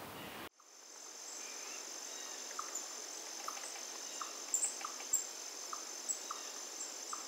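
Outdoor nature ambience: steady high-pitched insect drone with short, repeated chirps from a bird or insect about every half second, and a few higher chirps. It starts about half a second in.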